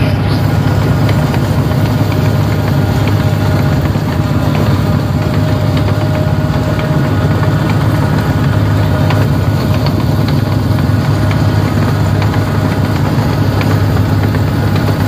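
Diesel engine of a New Holland 1545 rice combine harvester running steadily as the machine drives forward, with a steady whine above the deep engine note.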